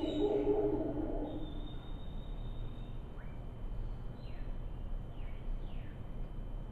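Howler monkeys roaring, a low, rough call that fades out about a second and a half in. Then come bird calls: one long thin whistle and several short whistles falling in pitch.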